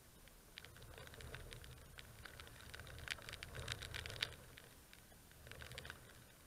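Faint light rain: drops ticking and pattering close to the microphone in irregular clusters of small clicks, thickest around the middle and again near the end, over a low rumble.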